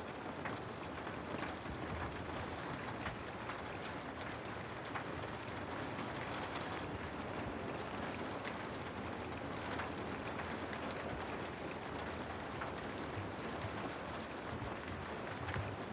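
Steady rain falling, a dense even hiss with scattered individual drops ticking.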